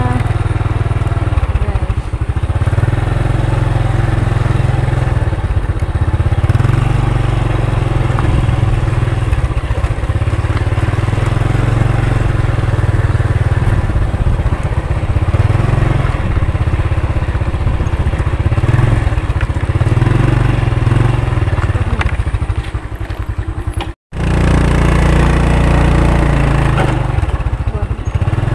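Motorcycle engine running at low speed on a slow ride, heard as a steady low rumble that rises and falls. The sound drops out for a moment near the end.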